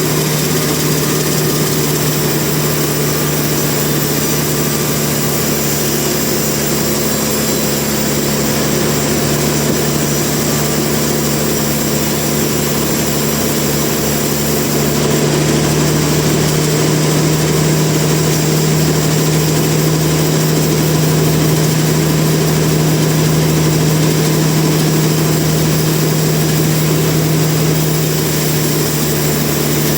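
Sawmill machinery running steadily with a low engine-like drone; the sound shifts slightly and gets a little louder about halfway through.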